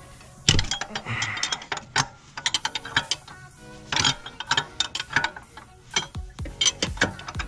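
Irregular metal clicks and clanks from a big pipe wrench and a fan-clutch holder tool worked against the fan clutch nut, which stays seized and will not break loose.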